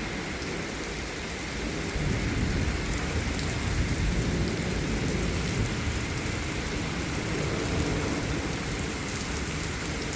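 Heavy rain and strong derecho wind, a steady rush of noise with a low rumble underneath that grows louder about two seconds in.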